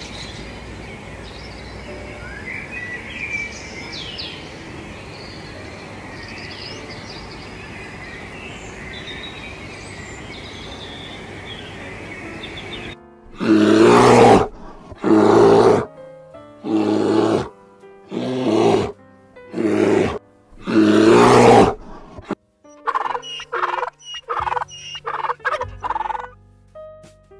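Animal calls in three stretches. First, birds chirp over a steady hiss. About halfway through come six loud, drawn-out calls about a second and a half apart. Near the end, a quick run of short calls follows.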